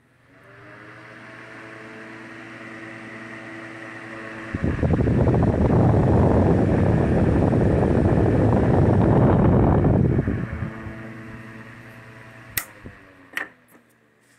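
Antique 1917 Westinghouse Whirlwind electric fan switched on and spinning up with a motor hum, then a loud rush of its airflow for about six seconds, before the hum fades as it winds down. A few sharp clicks come near the end.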